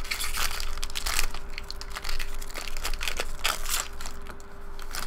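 Foil wrapper of a 2013 Bowman Jumbo baseball card pack crinkling and crackling irregularly as it is torn open by hand.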